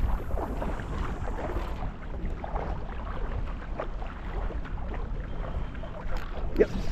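Wind buffeting the microphone over fast-running tidal water, a steady rumbling wash with a few small clicks and knocks, the loudest near the end.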